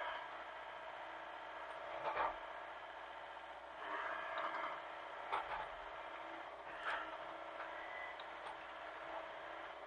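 Mini excavator's diesel engine running steadily, with brief louder bursts about 2, 4, 5 and 7 seconds in.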